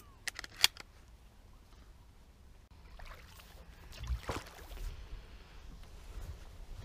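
A few sharp clicks, then a small wooden boat being pushed with a pole across calm water: swishing water and low knocks as the pole goes in, the strongest a little after four seconds.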